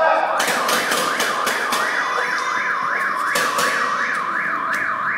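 Electronic warbling siren, its pitch sweeping up and down about four times a second. Sharp cracks, like paintball markers firing, are heard over it in the first two seconds and again just past three seconds.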